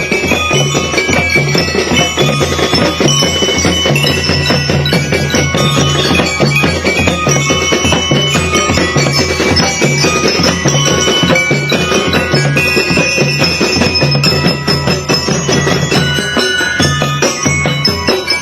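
Drum and lyre corps playing a pop song: bell lyres carry the melody over steady marching drums and a pulsing bass part.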